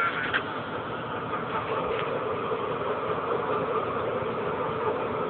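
Diesel locomotives of a stopped freight train idling with a steady hum, which grows a little louder about a second and a half in. A couple of faint clicks sound over it.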